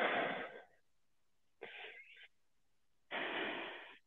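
A man breathing heavily and noisily, close to the microphone, while out of breath from hard exercise: three long breaths about a second and a half apart.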